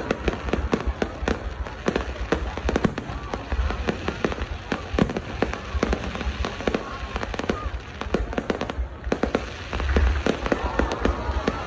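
Fireworks going off in a dense, continuous barrage: many sharp bangs and crackles in quick, irregular succession.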